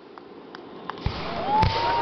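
Fireworks being launched: a quiet first second with a few faint pops, then dull launch thumps and a sharp crack about a second and a half in, with whistling tones that rise and hold as the shells climb.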